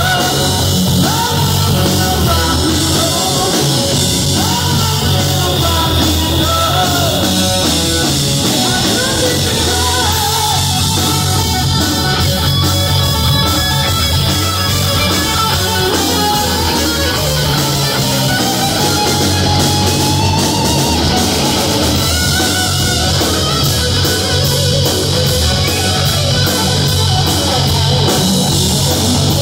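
Live rock band playing loud: electric guitars, bass and drum kit, with a male lead singer.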